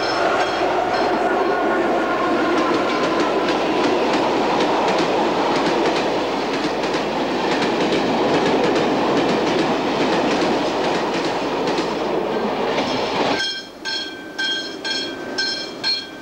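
A freight train of open hopper wagons, hauled by an electric locomotive, passes close by, its wheels rumbling and clattering steadily over the rails. About 13 seconds in the sound cuts off suddenly, leaving a quieter, more distant train and a high chirping repeated about twice a second.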